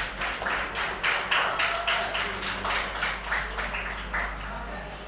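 A small group of people clapping by hand, quick irregular claps that thin out and die away about four seconds in.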